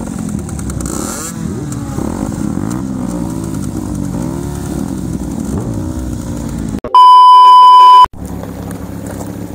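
Motorcycle engines idling in a group, with repeated throttle blips that rise and fall in pitch roughly once a second. About seven seconds in, a loud steady electronic bleep sounds for about a second and is the loudest thing heard; after it a steady engine sound carries on.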